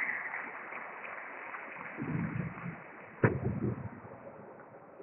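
Sports-hall room noise with dull low thumps of feet on the wooden floor about two seconds in, and one sharp click of a table tennis ball being struck just after three seconds.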